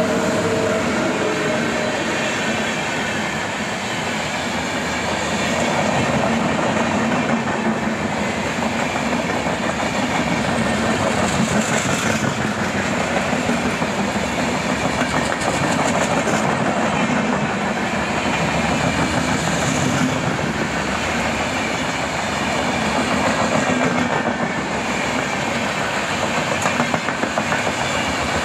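Passenger coaches of an Indian Railways electric-hauled express train passing close by at speed. There is a steady rushing roar, and the wheels clatter rhythmically over the rail joints, most clearly near the end.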